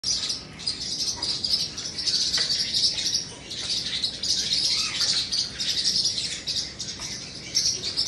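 White cockatoo chittering: a dense, continuous run of high, rapid chirps that swells and dips every second or so.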